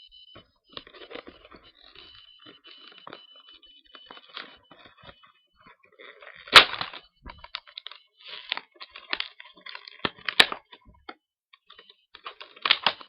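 A product box being cut and torn open with a tool: scattered rustling, scraping and tearing of the packaging, with two sharp cracks, one about halfway through and one about ten seconds in.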